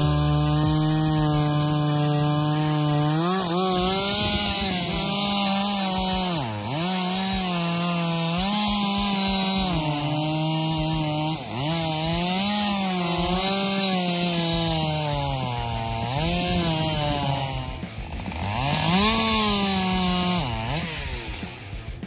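Two-stroke gas chainsaw running at high revs while cross-cutting a log. Its engine note sags each time the chain bites into the wood and climbs again as it frees, several times over. The saw eases off near the end.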